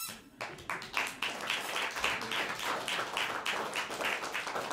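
Theatre audience applauding, breaking out suddenly and running on as dense clapping, with a few sharper claps standing out; the applause that greets the end of a magic act.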